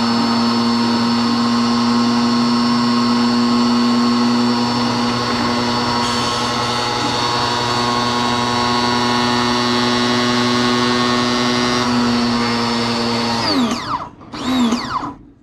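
Hyundai 1400 W electric pressure washer's carbon-brush motor and pump running with a steady hum and whine. About 13 seconds in, the pitch slides down and the motor winds to a stop: the auto-stop cutting out once the unit has filled and built pressure, with the gun trigger released.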